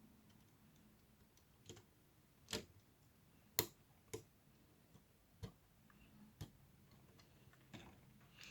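Sharp little plastic clicks and taps of LEGO pieces being handled and pressed together, about seven at irregular intervals, the loudest two near the middle.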